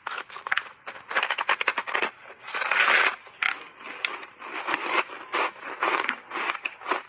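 Bites into a block of frozen buckwheat ice and crunching chews: a run of rapid crackling crunches, with a longer, louder crunch about three seconds in.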